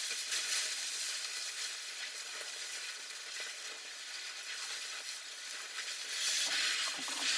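Steady hiss and crackle of a cutting torch cutting through steel plate to make a bucket tooth.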